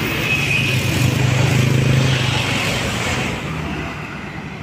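A passing road vehicle's engine drones steadily with road noise, then fades away about three seconds in as it goes by.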